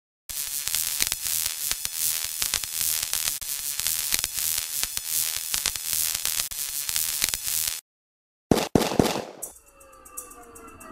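Dense crackling, static-like noise full of clicks for about seven seconds, which cuts off abruptly. After a short silence come two sharp hits and a brief sweep, then music with slowly falling tones begins.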